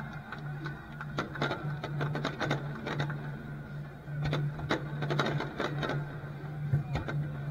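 Aerial fireworks crackling: rapid clusters of sharp pops and cracks from crackle-effect shells bursting overhead, over a low hum.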